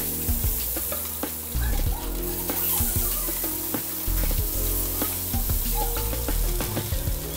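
Waffle batter sizzling as it is scooped onto the hot, greased plates of an electric waffle iron, with light taps of the scoop, over background music.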